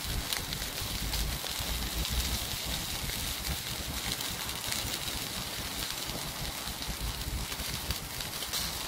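Chicken drumsticks and wings sizzling on a wire grill grate over hot charcoal: a steady fizzing hiss dotted with small crackles, over an uneven low rumble.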